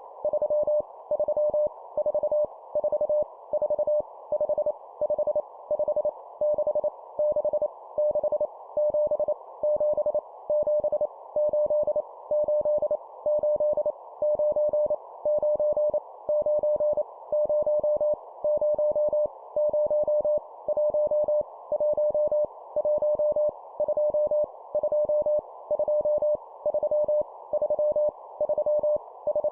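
Morse code (CW) sent at 25 words per minute: a single mid-pitched tone keyed on and off in quick, evenly spaced groups, sending numbers that are each repeated three times, over a steady band of hiss.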